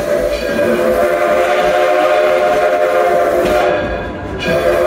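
Steam locomotive whistle blown for a road crossing: one long blast of about three and a half seconds, a short break, then a second long blast starting near the end.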